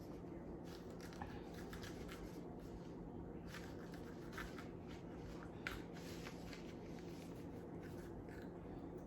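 A kitchen knife scraping and clicking lightly as jalapeño peppers are halved and their seeds and ribs scraped out. The scrapes come irregularly over a faint steady hum.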